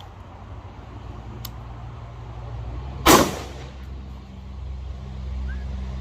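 A single rifle shot from an AR-15 fitted with a muzzle compensator and a heavy H3 buffer, about halfway through, with a short echo after it. It is a one-round test of whether the rifle cycles with the heavier buffer. A steady low hum runs underneath.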